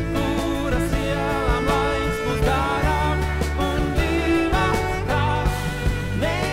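A man singing a song with acoustic guitar, Nord Electro stage keyboard and bowed cello accompaniment.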